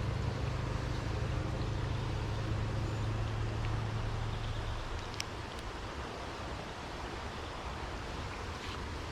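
Steady rushing of a small creek running high after rain, with a low rumble that eases off about halfway through and a single sharp click about five seconds in.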